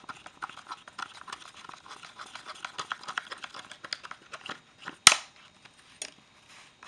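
A plastic spoon stirs and scrapes Bondo body-filler putty in a cut-down plastic cup, mixing in the hardener, as a dense run of small scrapes and ticks. A sharp click comes about five seconds in, and a fainter one a second later.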